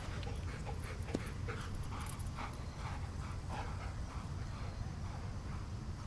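A dog panting in short rhythmic breaths, about two to three a second, over a low steady rumble.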